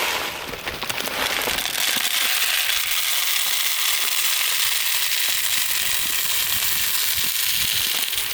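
Dry chicken feed pellets pouring out in a stream, a steady, dense rattling crackle.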